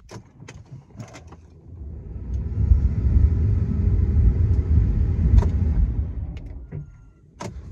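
Volkswagen Touareg V10 TDI being cranked on the key without starting: a low rumble that builds for a couple of seconds, holds, then dies away, with a few clicks around it. The diesel does not catch, the start fault under diagnosis.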